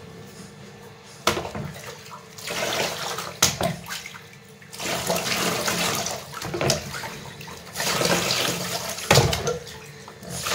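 Water being scooped and poured over a wet corgi puppy standing in a plastic basin, splashing in three bursts of a few seconds each, with a few sharp knocks in between.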